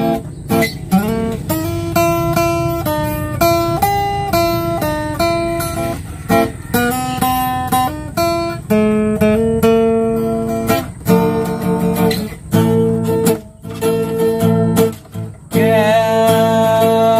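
Acoustic guitar playing a melody of single picked notes with some strumming, one note after another. A wavering held note comes in near the end.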